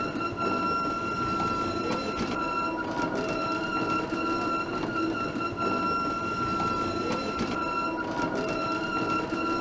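Metal rolling gate sliding along its track while closing, with a steady, high metallic squeal from its wheels over a grinding rumble, and a couple of faint knocks.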